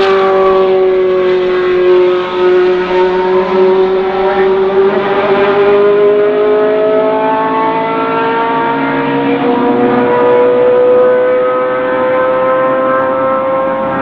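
Ford Cosworth DFR 3.5-litre V8 of a Spice SE90C Group C race car accelerating hard in one long pull. Its note dips a little at first, then climbs slowly and steadily in pitch.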